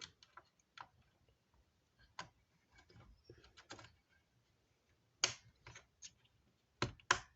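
Light clicks and taps of a RAM module being handled and fitted into a desktop motherboard's memory slot, with sharper clicks about five seconds in and twice near the end.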